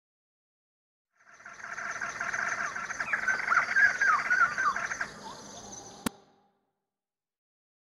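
Birdsong sample in an electronic music track: busy chirping bird calls come in after about a second of silence and fade out about two-thirds of the way through. A single sharp click comes just before they die away.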